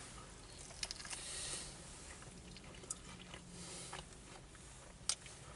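A person biting into and chewing a buffalo wing: faint, soft chewing with a few small clicks, the sharpest near the end.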